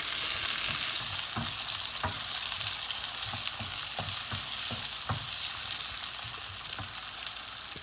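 Chopped onions and tomatoes frying in hot oil in a pan: a steady sizzle that eases a little toward the end, with a spoon knocking and scraping against the pan about once a second as they are stirred.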